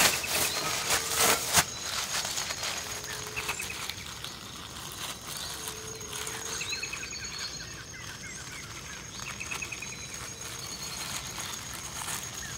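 Birds calling at daybreak: repeated short trills and chirps from several birds, with a few short low notes, over a steady high-pitched buzz. A few knocks and rustles from handling things in the first second or two.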